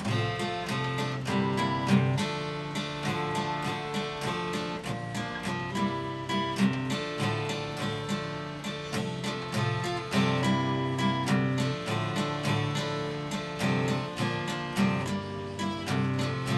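Acoustic guitar strummed in a steady rhythm, playing the song's instrumental introduction; it starts suddenly at the very beginning.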